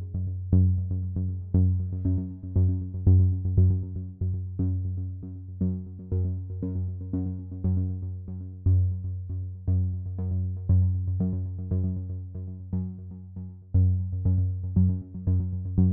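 Electronic background music with synthesizer notes over a steady bass pulse.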